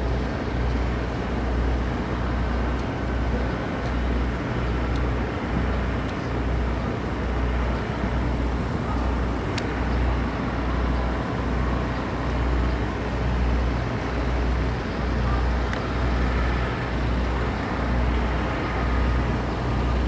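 A golf iron striking the ball on an approach shot, heard as a single sharp crack about ten seconds in, over a steady low rumble.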